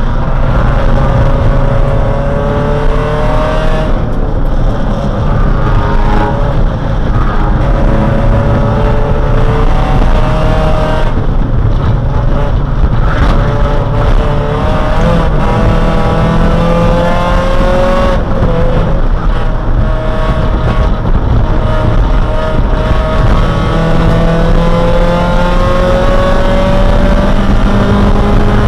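Neon race car's four-cylinder engine, heard from inside the cabin, pulling hard with its note climbing steadily over several seconds, then dropping back as the driver shifts or lifts, several times over.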